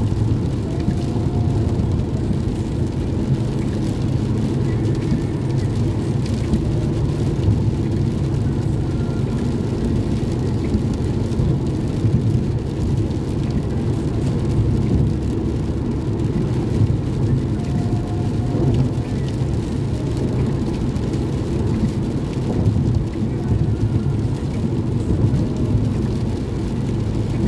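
Steady low road rumble heard from inside a car travelling at freeway speed on rain-soaked pavement, with tyre noise from the wet road.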